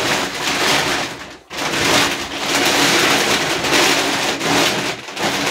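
Plastic shopping bags rustling and crinkling as they are rummaged through, with a brief pause about a second and a half in.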